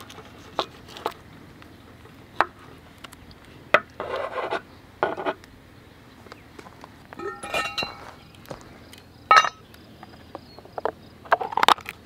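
Knife slicing through a tube of precooked polenta on a wooden cutting board, with sharp knocks of the blade on the board and short scraping sounds. About seven seconds in there is a ringing metallic clink, and a quick run of knocks and rattles near the end.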